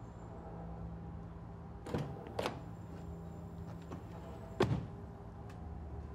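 Three short knocks, the last one about four and a half seconds in the loudest, over a steady low hum.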